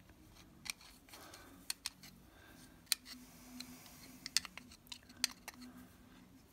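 Scattered sharp clicks and light scrapes of a screwdriver against an immersion heater's brass flange and gasket as sealer paste is spread on it, coming at irregular intervals.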